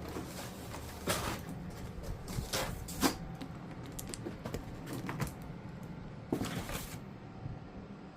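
Handling noise while unboxing: an irregular series of short clicks and brief rustles of plastic and packaging.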